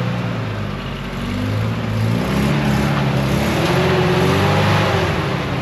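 Off-road 4x4's engine revving under load as it drives up a muddy hill, growing louder about two seconds in.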